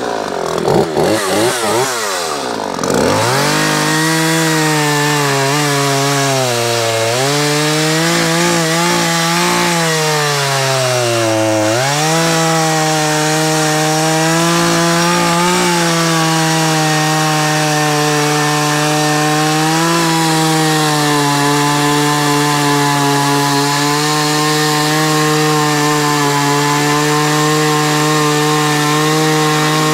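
Craftsman two-stroke gas chainsaw cutting through a log, its engine running on fuel mixed with no two-stroke oil and with no air filter. The revs fall and waver for the first few seconds, then it runs at full throttle through the cut, the pitch sagging briefly twice as the chain bites.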